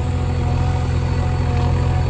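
Heavy diesel engine running steadily with an even low throb.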